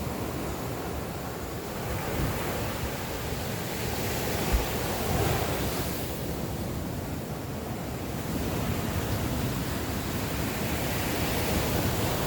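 Sea surf breaking and washing up the beach, swelling and easing off in waves. A brief low thump comes about four and a half seconds in.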